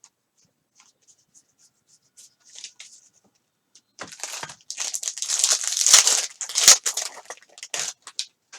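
Soft rustling, then about four seconds in a trading card pack wrapper is torn open and crinkled, a loud crackling rip that stops just before the end.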